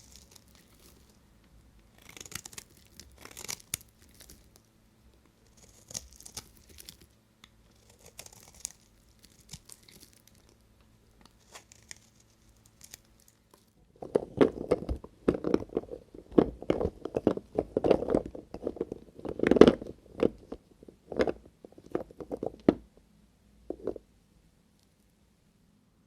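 Dry bar soap being cut with a knife: a quick run of loud crunching and cracking cuts in the second half, after a stretch of soft crinkling and scraping.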